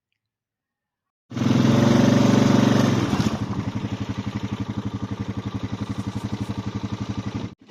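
A farm vehicle's engine comes in suddenly about a second in, runs loudest for a couple of seconds, then settles to a steady, rapid pulsing beat.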